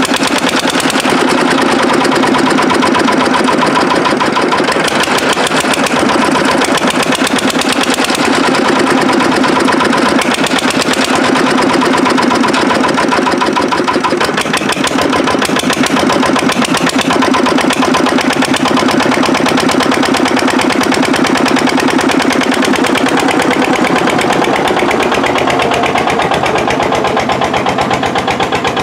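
Vintage single-cylinder air-cooled Petter diesel on a fifty-year-old dumper, running steadily with a fast, even beat of firing strokes just after a hand-cranked cold start, burning filtered waste chip-pan oil.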